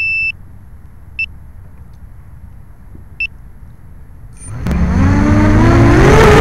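A 250-size FPV quadcopter beeps while it sits on the ground: one long tone that ends just after the start, then two short beeps about two seconds apart. About four and a half seconds in, its brushless motors spin up for takeoff, a whirring whine that rises in pitch and grows loud.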